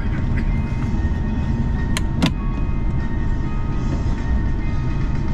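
Steady low rumble of an Airbus A350-900 taxiing, heard inside the cabin: its Rolls-Royce Trent XWB engines at idle and the wheels rolling. Two sharp knocks, a quarter second apart, come about two seconds in.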